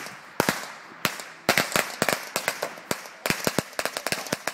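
Firecrackers popping in quick, irregular succession: many sharp bangs, several a second, with short gaps between clusters.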